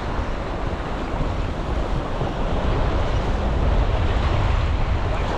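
Wind buffeting the microphone in a steady low rumble, over surf washing against the jetty rocks.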